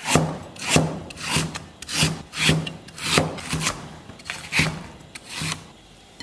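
Chinese cleaver slicing ginger on a wooden chopping board: a regular series of cuts, about two a second, each ending in a knock of the blade on the wood. The cutting stops shortly before the end.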